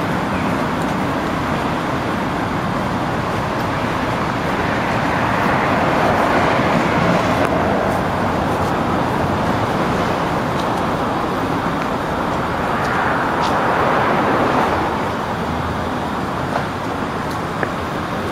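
Road traffic noise: a steady hiss of passing cars, swelling twice as vehicles go by, about five seconds in and again around thirteen seconds.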